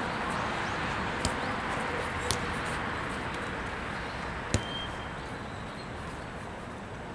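A futsal ball being kicked on artificial turf: three sharp thuds, the loudest about four and a half seconds in, over a steady outdoor background noise.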